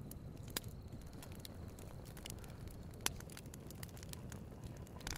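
Campfire crackling, with scattered pops (the sharpest about half a second and three seconds in) over a steady low rumble.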